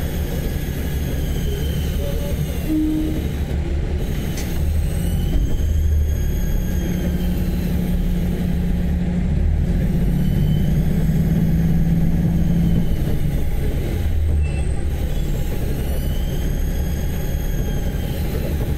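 KiHa 30 and KiHa 37 diesel railcars heard from on board while moving at a crawl: a steady engine and wheel rumble, with a faint high wheel squeal that rises and fades several times.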